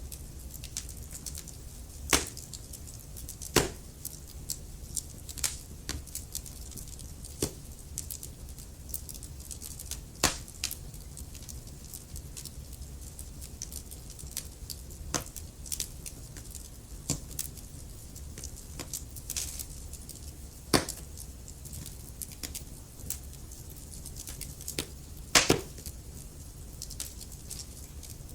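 Wood fire crackling: irregular sharp pops and snaps, a few much louder than the rest, over a low steady rumble.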